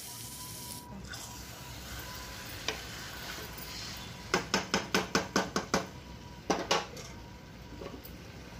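A wooden spatula stirring chicken in an aluminium pressure-cooker pot. It knocks and scrapes against the pot in a quick run of about eight strokes in the middle, then twice more, over a low steady hiss.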